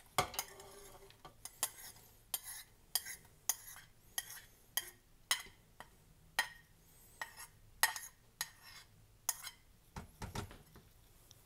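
A metal spoon scraping and tapping chopped onion and garlic off a plate into a stainless steel inner pot. It makes a run of sharp clinks and scrapes, about two a second.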